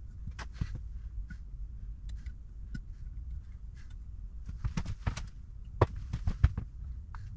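Scattered clicks and light knocks of a carburettor body and its small metal parts being handled and fitted by hand, with a run of louder, sharper knocks about five to six and a half seconds in.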